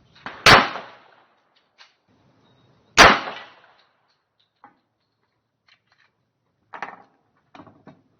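Two shots from a .45 caliber 1911 pistol fired at close range, about two and a half seconds apart, each with a short echoing tail. A few much quieter clicks and clanks follow near the end.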